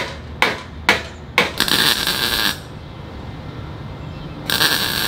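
Hammer tapping a steel fender flare four times, about two blows a second. Then two short MIG tack welds crackle, the first about a second long and the second, shorter one near the end.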